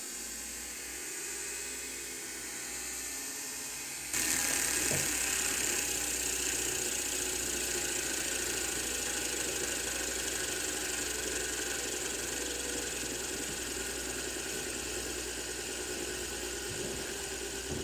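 LED fidget spinner whirring on its bearing, a steady hissing whir that gets suddenly louder and brighter about four seconds in.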